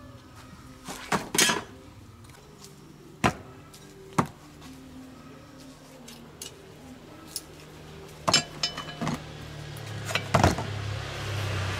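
Metal hand tools and parts clinking and knocking, scattered sharp strikes over a low steady hum that grows louder near the end.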